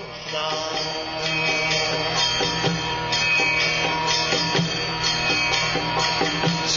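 Instrumental music: sustained pitched tones over light, frequent percussive strikes.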